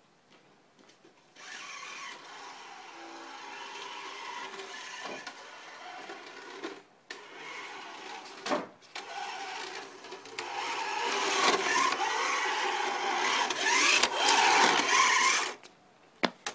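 Electric radio-controlled car driven about, its motor whining and tyres running, with a sharp knock about eight seconds in. It gets louder with the pitch of the motor sliding up and down in the last few seconds, then cuts off suddenly.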